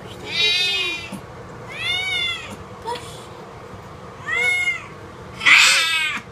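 Persian cat meowing four times, each call rising then falling in pitch. The last one is the loudest and harshest.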